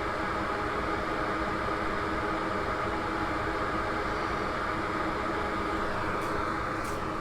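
Steady whir and hiss of a small electric fan, even throughout, with a few faint ticks near the end.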